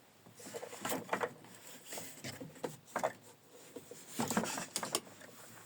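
Footsteps and light knocks on a wooden floor, coming in a few irregular clusters.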